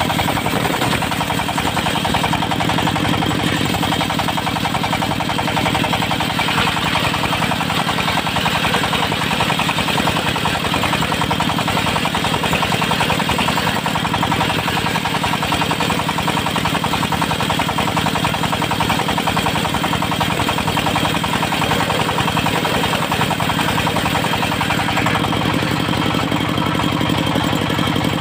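Engine of a portable circular-blade sawmill running steadily at an even speed.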